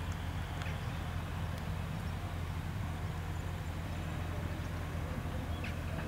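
Diesel railbus running as it pulls away along the station tracks: a steady low engine drone, with a few faint clicks.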